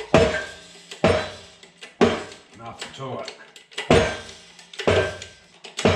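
Hammer blows on steel, about one a second with a short metallic ring, six in all with a pause in the middle: the old Belsaw setworks shaft is being driven out of its part, held by a Woodruff key.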